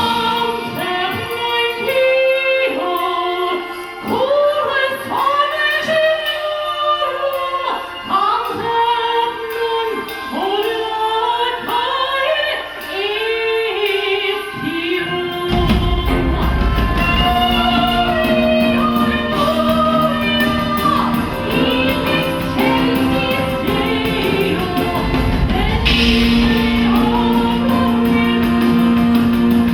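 Live Christmas show music: a powerful female lead vocal with backing singers over a recorded band. The first half is lighter, and a deep bass and fuller accompaniment come in about halfway through.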